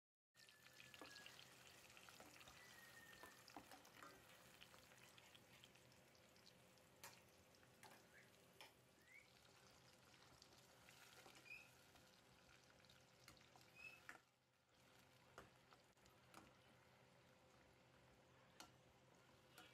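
Tomato and onion paste frying faintly in oil in a steel pot, with a metal spoon clicking and scraping against the pot as it is stirred.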